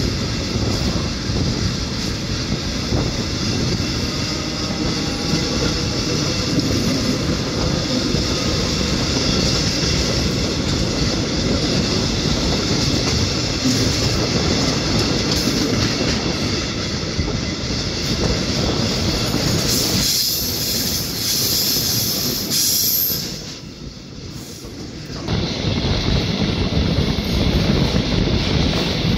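Czech passenger train running slowly over curving track, with steady wheel and rail noise and clacking over rail joints and points. A thin high squeal comes about twenty seconds in, and the noise drops for a couple of seconds shortly after.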